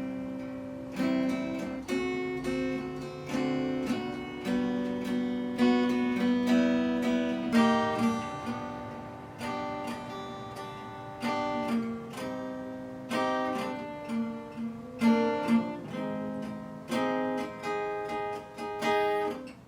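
Acoustic guitar strummed, with chords struck every second or two and left to ring between strums; no singing.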